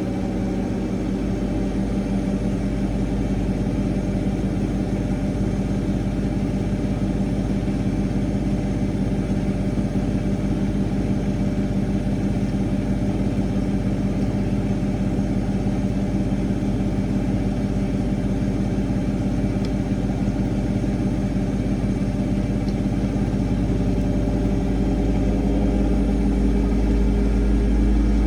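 Bauknecht washing machine on its spin cycle at up to 1,400 rpm: a steady motor hum over a deep rumble from the spinning drum, growing a little louder in the last few seconds.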